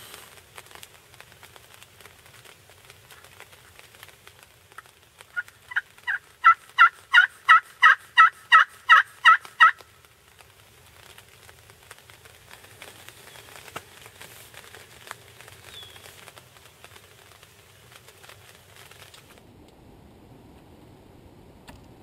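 A run of about fourteen turkey yelps, evenly spaced at about three a second, the first few softer and the rest loud.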